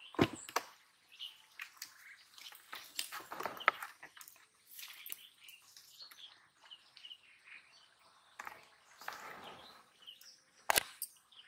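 Small birds chirping repeatedly, with a few sharp knocks and brief rustling, splashy noises. The loudest knock, right at the start, comes as a caught fish drops into a plastic tub; another sharp knock falls near the end.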